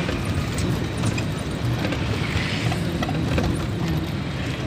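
Steady low rumble of road traffic and tyre noise, heard from a moving vehicle, with a bus driving close alongside.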